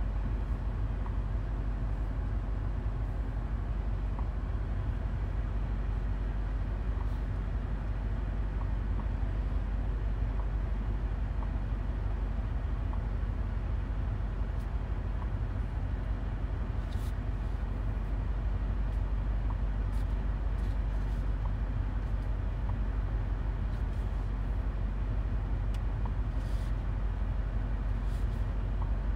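Steady low drone of the 2022 BMW X6M cruising, its twin-turbo V8 and the road noise heard from inside the cabin, with no revving.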